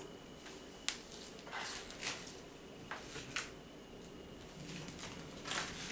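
Groceries being handled on a kitchen counter: a sharp tap about a second in, then short rustles of packaging and a few light clicks, with a louder rustle near the end.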